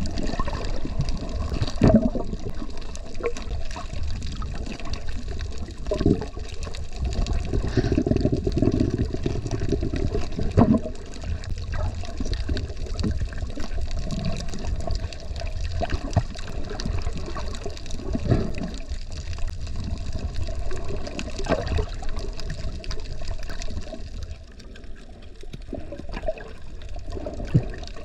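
Water sloshing and rushing around a camera held underwater while snorkeling, a steady low wash with a few scattered knocks. It goes quieter for a couple of seconds near the end.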